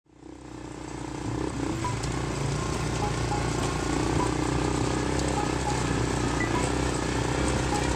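Engine of a side-by-side off-road buggy running steadily, fading in from silence over the first second or two.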